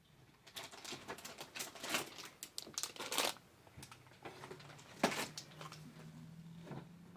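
Crinkly packaging crackling and rustling as it is handled: a dense run of crinkling over the first few seconds, then a few scattered crackles with a sharp one about five seconds in.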